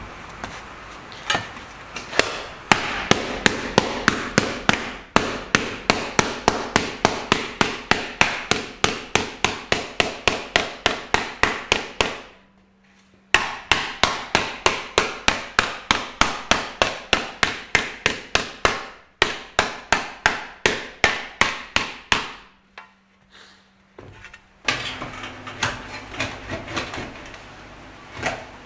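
Hand hammer striking repeatedly at a few blows a second, in long runs broken by short pauses.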